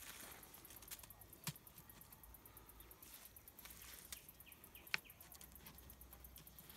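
Near silence: quiet outdoor background with two faint sharp clicks and a few faint high chirps.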